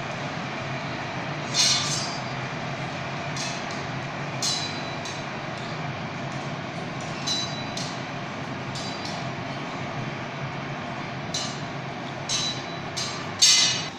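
Steady roar of the gas-fired glass furnace and glory hole, with scattered sharp metallic clinks of steel blowpipes and glassmaking tools, about eight of them, the loudest near the end.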